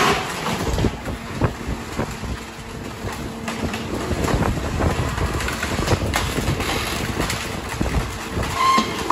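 Mack rear-loader garbage truck with a Leach packer body running steadily, with irregular sharp cracks and knocks as demolition wood is crushed in the hopper.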